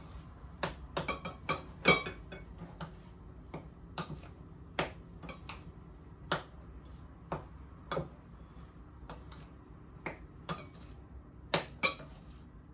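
Utensil clicking and knocking against a glass mixing bowl while the cake batter is stirred, in irregular sharp taps about once or twice a second, the loudest about two seconds in and a close pair near the end.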